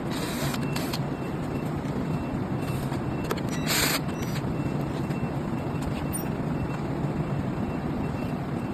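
Steady low workshop rumble, with a few short clicks and scrapes of a screwdriver or hex key on the scooter's frame. The loudest scrape comes about four seconds in.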